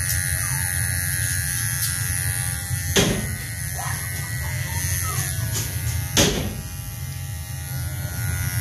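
Electric pet clippers buzzing steadily as they shave a young poodle puppy's face, with two sharp knocks about three and six seconds in.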